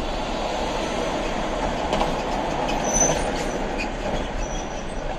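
Steady road and tyre noise inside a moving car's cabin on a highway, with a large box truck running close alongside in the next lane. A few light clicks and a brief rise in loudness come near the middle.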